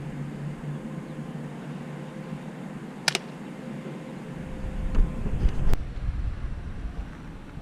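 A pump BB gun fires once about three seconds in, a sharp crack followed straight away by a second click, with a fainter single click near six seconds. From about halfway through, a low rumbling noise rises and becomes the loudest sound.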